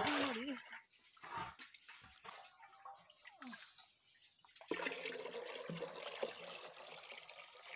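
Spring water pouring into an aluminium water pot: a steady splashing that starts about five seconds in, after a quieter stretch of faint trickling.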